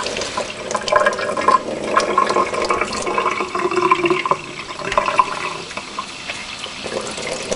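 Water from a faucet running into a plastic bottle, filling the inside bottle of a homemade chicken waterer, with splashing and gurgling.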